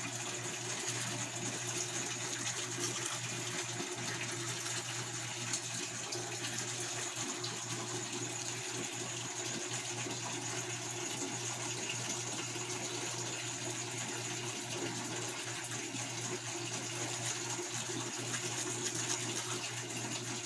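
Tap water running steadily into a sink, with a low steady hum underneath.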